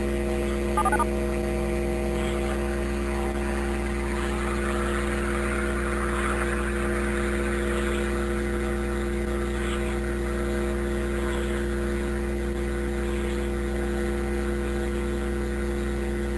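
Steady low droning hum made of several held tones, unchanging in pitch and level, with a brief blip about a second in.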